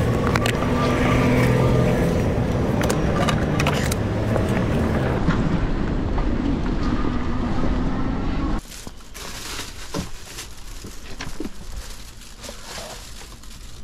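Road traffic noise with a motor vehicle running close by, a steady hum under a noisy rush. About two-thirds of the way in it drops off abruptly to quieter road noise with scattered clicks.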